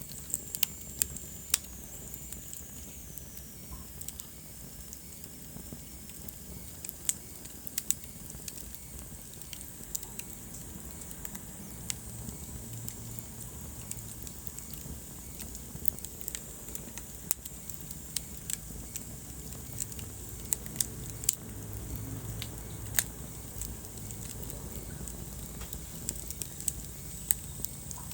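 Wood fire burning in a fireplace, crackling with irregular sharp pops over a steady low rumble of the flames. A faint high whine slides down in pitch in the first few seconds.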